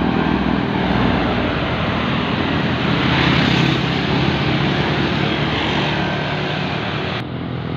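Tour bus's diesel engine running loudly as the bus drives past close by, the noise swelling to a peak about three seconds in. The hiss drops away abruptly near the end.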